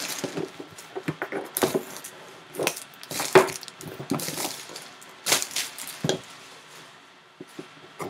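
Plastic shrink wrap crinkling in irregular bursts as it is pulled off a cardboard box, with the box knocking and sliding against the table, quieter near the end.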